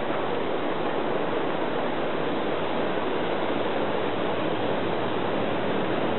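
Steady, even rushing of wind over the microphone, without breaks or distinct events.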